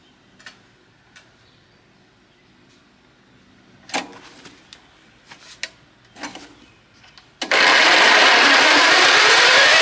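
A few scattered clicks and knocks, then about seven and a half seconds in the Landworks wood chipper's small gas engine starts and runs loudly, its pitch rising as it speeds up.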